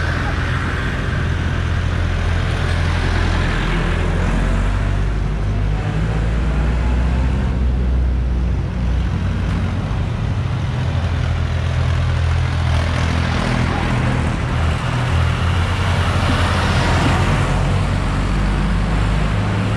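Tractor engines and other vehicles running as they drive past one after another in a procession. A steady low engine drone, swelling louder about three seconds in and again near the end as vehicles pass close.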